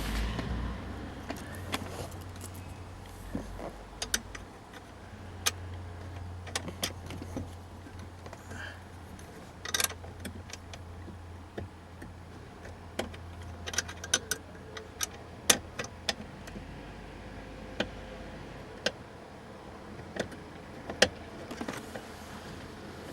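Scattered, irregular clicks and light metallic rattles of small fasteners and a tool being handled and fitted to a car's wiring harness under the dashboard, over a low hum that fades out near the end.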